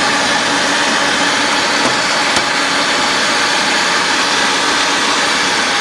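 Ridgid 535 pipe threading machine running steadily in forward, a loud, even motor-and-gear hum.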